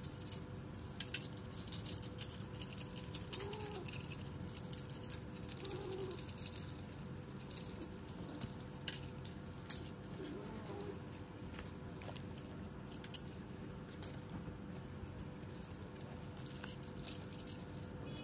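Light rustling, patter and clicks of kittens scampering and pouncing on dry dirt and leaves, over a faint steady hum.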